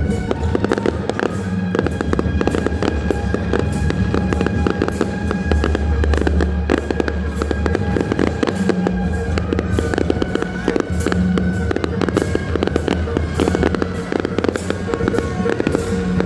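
Fireworks crackling in a dense, rapid, continuous volley, with music playing underneath in long held tones.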